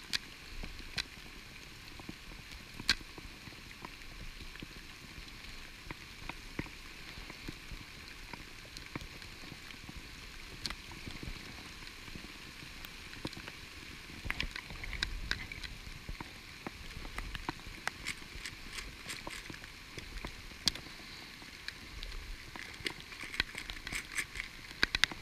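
Pouring rain: a steady hiss of rain with many scattered sharp ticks of drops striking nearby, the ticks coming thicker in the second half.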